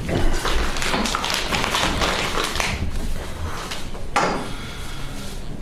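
Papers and a large paper envelope being handled close to a table microphone: rustling with taps and knocks, busiest in the first three seconds, with a sharp rustle about four seconds in.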